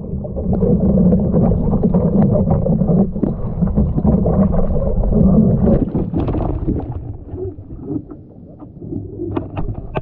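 Water churning and bubbling around a sea kayak, heard muffled from under the surface while a swimmer works the boat. About six seconds in the sound comes up into the air and turns to lighter splashing, with a few sharp splashes near the end.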